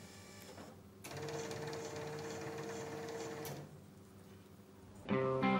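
Electric motor of a motorised coffin trolley running with a steady whine for about two and a half seconds, starting about a second in. Guitar music comes in near the end.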